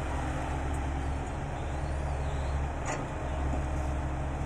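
Dump truck's diesel engine running steadily with a low drone, with a brief click about three seconds in.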